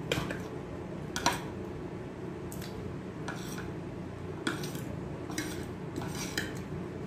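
Light clicks and clatter of eating with the hands: small crab shells being picked apart and fingers working rice on a metal plate, about eight sharp clicks spread through, over a steady low hum.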